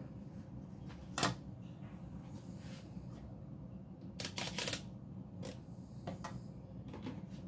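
Light clicks and knocks of cake-decorating tools being handled and set down on a countertop: one sharp click about a second in, a quick run of clicks around four seconds in, and a few softer ones after. A steady low hum runs underneath.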